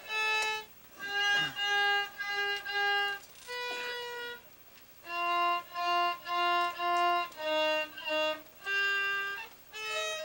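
Violin playing a simple tune in short, separate bowed notes, one note at a time, with brief pauses between phrases and a couple of sliding notes.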